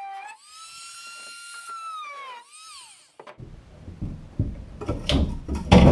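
Oscillating multi-tool (Sonicrafter) cutting into a boat bulkhead: a high whine that jumps up in pitch, holds, then winds down and stops about three seconds in. Then irregular knocks and bumps, loudest near the end, as the cut section is worked loose.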